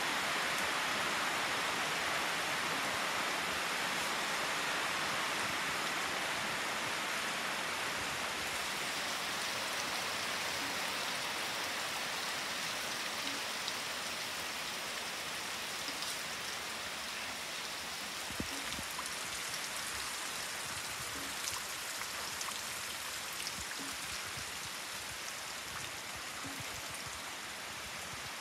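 Steady rain falling, an even hiss that eases slightly over the stretch, with scattered single drops ticking close by in the second half.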